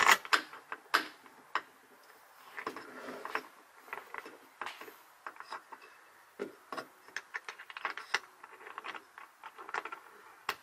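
Irregular small clicks, taps and knocks of tools and parts being handled inside a jetboat's hull compartment.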